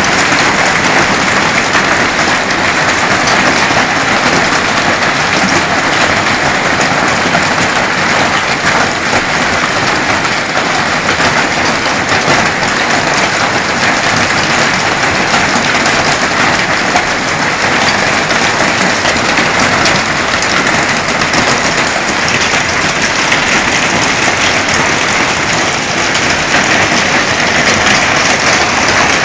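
Heavy hail falling: a loud, steady clatter of countless hailstones striking the surfaces around.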